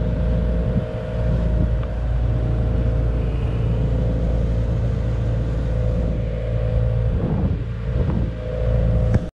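Engine of a wooden fishing boat running steadily at cruising speed, a low even hum under a rush of wind and water. The sound cuts off abruptly at the end.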